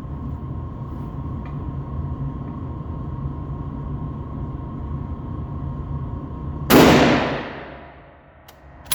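A single shot from a bolt-action military rifle about two-thirds of the way in, its report trailing off over about a second and a half, followed by a couple of sharp metallic clicks near the end.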